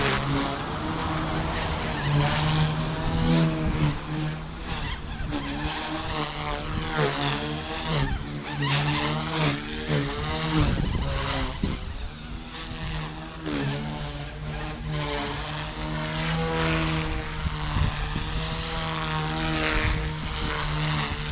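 Blade 150S micro RC helicopter in flight: the electric motor and rotor whine rises and falls in pitch as it manoeuvres. Wind buffets the microphone underneath.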